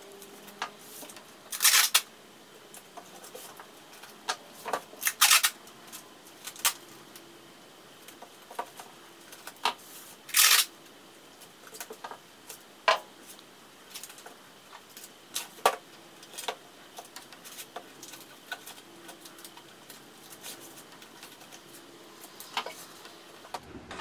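Adhesive tape being pulled off the roll in short rips and pressed onto a canvas's wooden stretcher frame, with scattered clicks and taps of handling, every few seconds.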